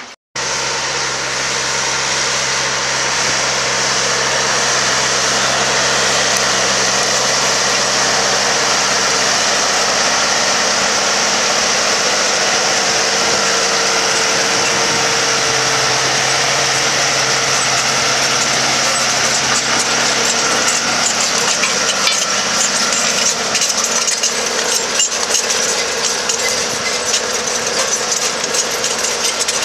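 Tractor engine running steadily under load as it pulls a seven-shank chisel plough through the soil. From about twenty seconds in, a dense crackling rattle grows over the engine.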